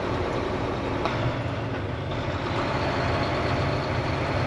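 Heavy farm vehicle engine running steadily, a continuous low hum with no change in speed.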